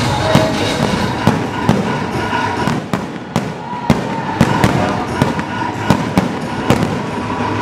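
Aerial fireworks going off: a dozen or so sharp bangs at irregular intervals over a continuous noisy background.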